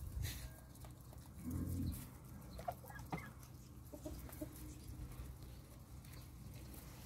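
Hens clucking softly with a few short calls, over faint ticking as the birds peck at grain scattered on concrete. A low, muffled thump comes about a second and a half in.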